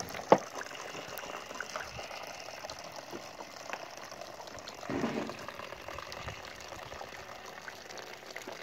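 Juice pressed from cooked sugar beet trickling off a cloth-covered wooden press into a plastic basin, a steady running of liquid. A sharp knock comes just after the start, and something briefly louder about five seconds in.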